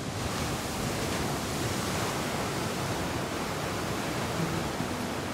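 Steady, even rushing noise like waves washing, with no distinct events; faint low steady tones come in near the end.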